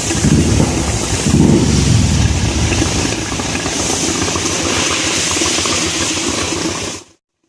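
Royal Enfield 350 single-cylinder engine running at idle, with two short swells in speed in the first couple of seconds. The sound cuts off suddenly near the end.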